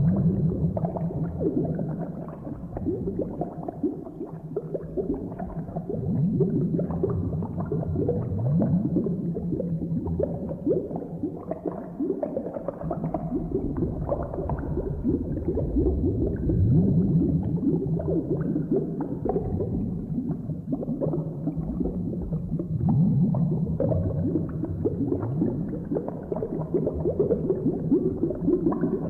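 Boiling cauldron sound effect: thick liquid bubbling and gurgling without pause, deep bubbles popping in uneven swells.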